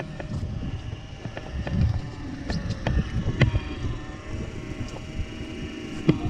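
Small fishing boat's engine running steadily, with wind rumbling on the microphone and a few sharp knocks, the loudest about three and a half seconds in.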